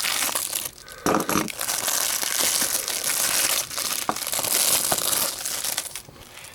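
Plastic shrink-wrap crinkling and crumpling as it is torn off a 4K Blu-ray case, with brief pauses in the handling.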